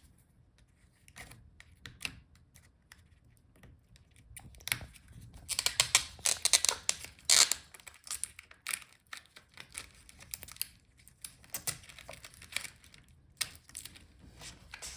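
Hands working the old LCD panel and its video cable loose from a laptop's screen lid: scattered small clicks and taps with bouts of crinkling and tearing, busiest from about five to eight seconds in.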